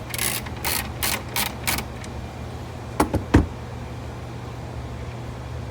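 Socket ratchet turning off a diaphragm valve's already-loose bonnet nut: a quick run of about six short rasping strokes over the first two seconds, then two sharp knocks about three seconds in, the second louder, over a steady low hum.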